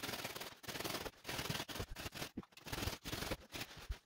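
Serrated bread knife sawing through upholstery foam: rasping back-and-forth strokes, about two a second.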